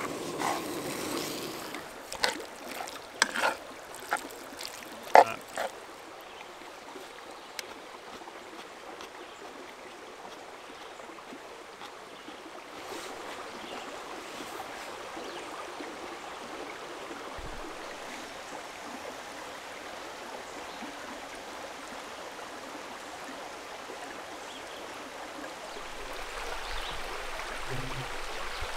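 Steady rush of stream water. A few sharp clicks and knocks come in the first several seconds.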